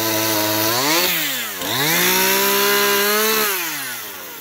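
Stihl two-stroke chainsaw running. It revs up about a second in, dips sharply, then holds a higher pitch before the throttle is let off near the end, the engine note falling and fading as it slows.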